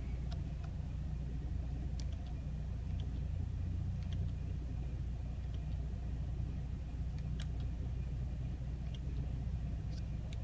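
2016 Chevrolet Camaro 2LT's engine idling steadily in Park, heard from inside the cabin as a low, even hum. A few faint clicks come through over it.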